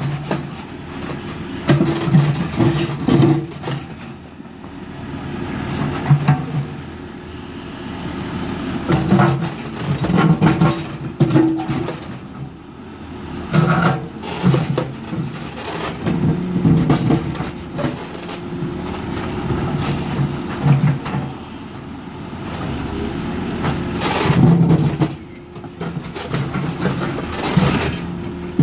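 JCB 3CX Eco backhoe loader's diesel engine running while the backhoe digs a pole hole. Its note rises and falls every few seconds as the hydraulics take load, with scattered knocks and scrapes.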